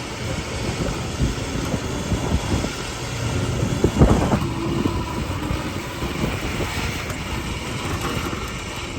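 Steady running noise of a vehicle, engine and road or wind noise together, with a brief louder burst about four seconds in.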